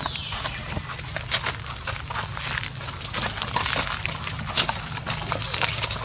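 Dry fallen leaves crackling and crunching underfoot: a dense, irregular run of short crackles.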